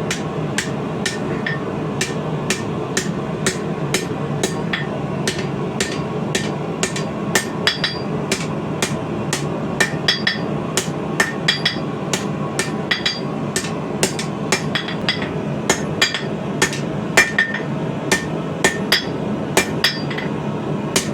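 Hand hammer striking steel on an anvil in a steady series, about two to three blows a second, many followed by a short metallic ring, as a length of coil spring is straightened. A steady low rushing sound runs underneath.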